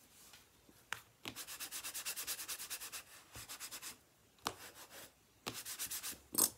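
Bone folder rubbed rapidly back and forth over cardstock, burnishing a glued paper layer flat, in several bursts of quick scraping strokes at about ten a second. A sharp click near the end.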